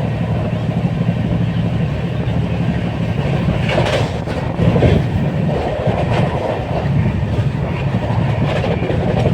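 Moving train heard from inside a carriage: a steady low rumble of the wheels on the rails, with a couple of louder clattering rattles about four and five seconds in.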